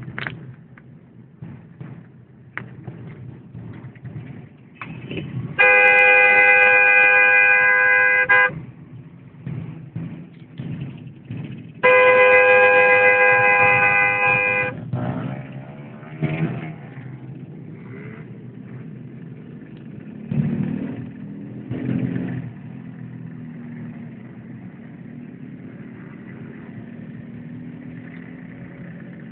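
Car horn blown in two long blasts of about three seconds each, several seconds apart, over the hum of slow traffic with motorcycles around.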